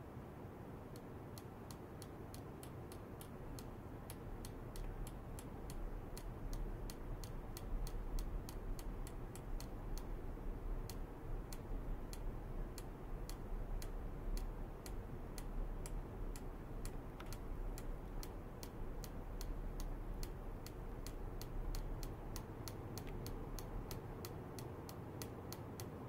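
Steady, regular ticking, about three sharp clicks a second, over a low hum that grows louder a few seconds in.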